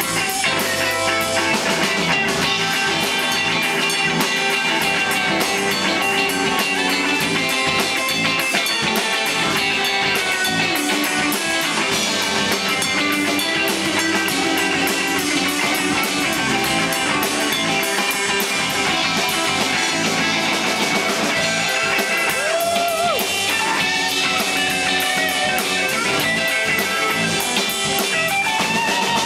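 Live rock band playing: an electric guitar plays a lead line over drums and bass, with bent notes about 23 seconds in and again near the end.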